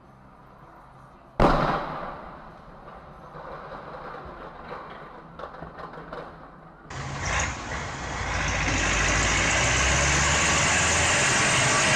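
A sudden loud bang about a second and a half in, dying away into quiet road noise. About seven seconds in, the sound cuts to the loud, steady running of a Kirovets articulated tractor's diesel engine: a low engine hum under a broad rush of noise.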